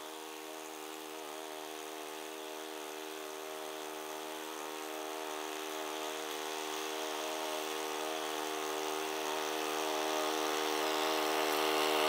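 Remote-control tracked slope mower's Kohler Command Pro gas engine running at a steady speed as the mower climbs a steep grassy slope. It grows steadily louder as it comes closer.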